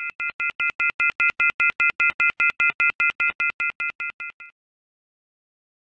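Rapid electronic beeping: about five short, identical beeps a second, each a steady high chord. It swells and then fades out, stopping about four and a half seconds in.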